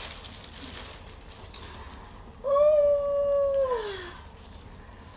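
A dog howling once: one long call held at a steady pitch, then sliding down as it ends.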